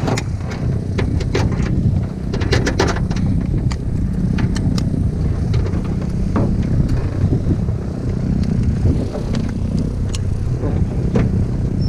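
An engine running steadily at a low pitch, with a run of clicks and knocks in the first few seconds and scattered clicks after.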